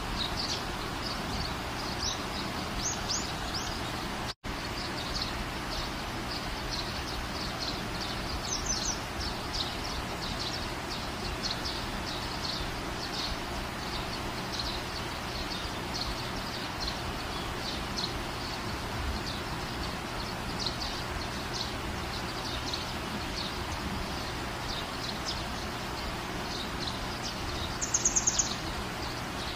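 Outdoor ambience of small birds chirping over a steady background hiss: many short, high chirps throughout, with a louder high call near the end. The sound cuts out for a moment about four seconds in.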